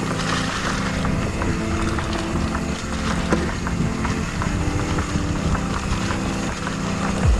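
Dirt bike engine running on a trail ride, its revs rising and falling.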